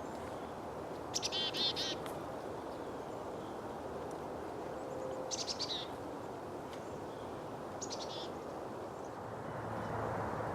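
Small wild songbirds calling: three short bursts of rapid, high-pitched notes, about a second in, midway and near the end, over a steady low background hiss.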